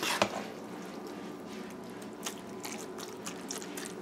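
A large spoon scooping a wet, cheesy macaroni mixture out of a steel pot: a squelching scrape right at the start, then light spoon scrapes and clicks against the pot.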